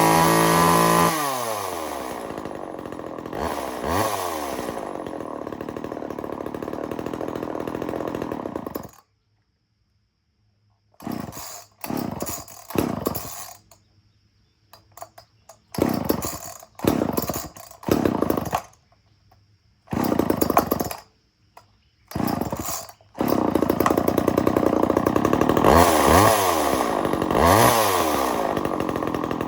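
Vintage Homelite two-stroke chainsaw running and settling from high revs, then shut off about nine seconds in. It is then pull-started several times, giving short bursts that die out, until it catches and keeps running with the throttle blipped near the end.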